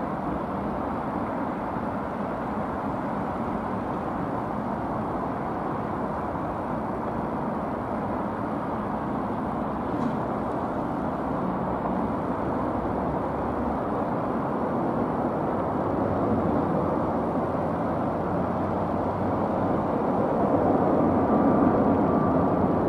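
Steady rushing rumble of a Boeing 777-200LR's GE90 jet engines at takeoff power, growing louder over the last few seconds as the climbing airliner approaches, with a faint whine joining near the end.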